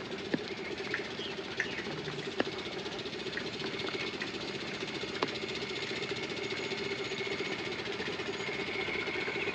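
Steady rain falling, with scattered sharp drips over a steady low hum.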